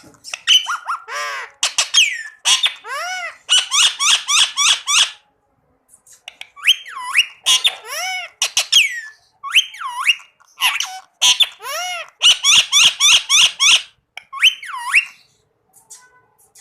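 Indian ringneck parakeet calling: runs of short, high calls, about five a second, some swooping up and down in pitch, broken by brief pauses.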